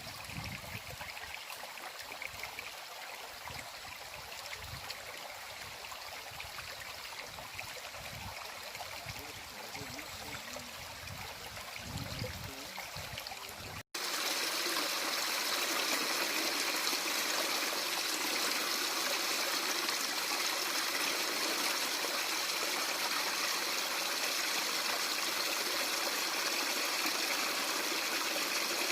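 Stream water running and trickling over stones. About halfway through it cuts suddenly to a louder, steadier rush of water.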